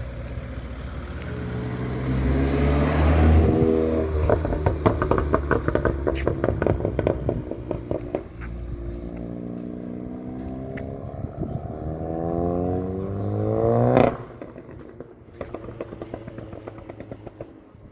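Audi S1's turbocharged four-cylinder engine revving up twice, each time followed by a rapid string of pops and crackles from the exhaust as the throttle closes. The second climb stops abruptly, with a few more crackles after it.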